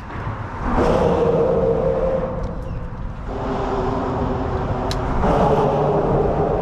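Traffic crossing the bridge overhead, heard from underneath as a loud droning hum with a steady low tone. One vehicle comes through about a second in, and another builds from about three seconds in and is loudest near the end.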